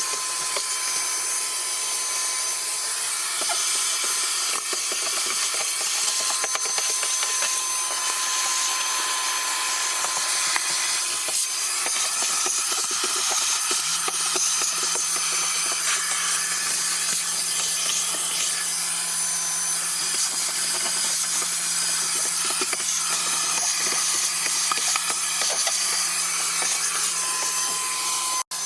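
Shop vac (wet/dry vacuum) running steadily with a high whine, its nozzle rubbing and scraping as it is worked over the car's interior.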